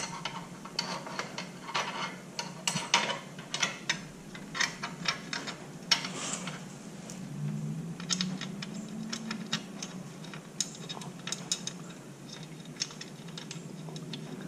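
Irregular light metallic clicks and ticks of a crash bar clamp, bolt and nut being handled and fitted by hand, in quick clusters with short pauses.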